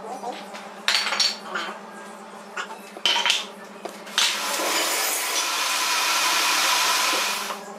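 Wooden joint pieces knocking on a wooden workbench a few times, then a steady rushing noise lasting about three and a half seconds, over a faint low hum.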